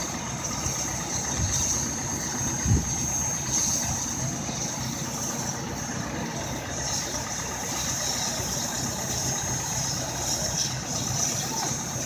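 Steam locomotive 3415 standing under steam, with a steady low rumble and a steady high hiss. One brief low thump comes nearly three seconds in.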